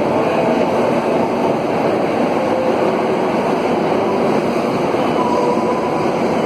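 Inside a car of an Alstom AS 02 steel-wheeled metro train running at speed: a loud, steady rumble of wheels on rail, with faint steady tones coming and going.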